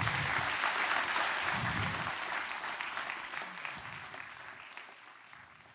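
Audience applauding, strong at first and then fading out over the last couple of seconds.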